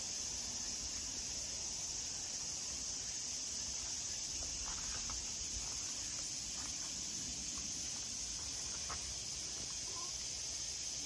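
Steady high-pitched chorus of insects, with a few faint short bird chirps in the middle.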